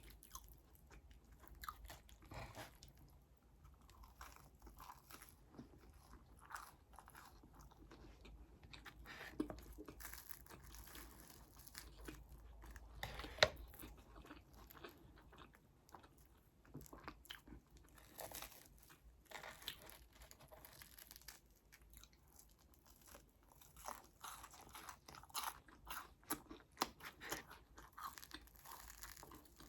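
Close-miked eating sounds: quiet chewing and biting with many small, sharp crunches, one crisper crunch about halfway through.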